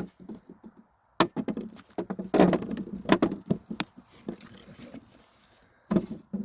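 Irregular knocking and clattering of hard objects: a quick, uneven run of sharp taps and knocks for a few seconds, then a short knock near the end.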